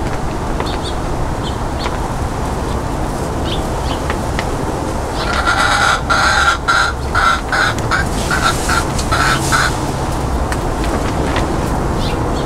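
Egyptian Fayoumi chicken clucking: a quick run of short calls starting about five seconds in and lasting some four seconds, over a steady low background rumble.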